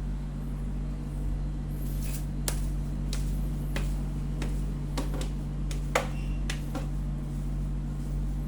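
A series of sharp clicks and knocks, like objects being handled, with the sharpest about six seconds in, over a steady low hum.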